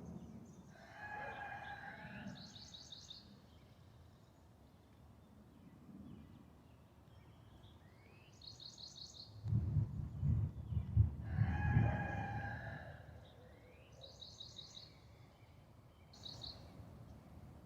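A rooster crows twice, about nine seconds apart, while a small bird repeats short, quick, high chirping trills. A low rumble of thunder, the loudest sound, rolls under the second crow.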